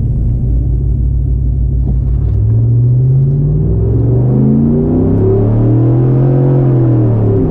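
2012 Chevy Silverado 1500 engine at a full-throttle drag-strip launch. A low idling rumble gives way about two seconds in to a steadily climbing engine note under hard acceleration. The note falls back near the end as the transmission shifts up.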